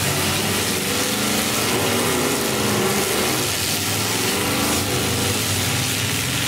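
Several demolition derby cars' engines running together, revving up and down as the cars reverse and manoeuvre in the mud.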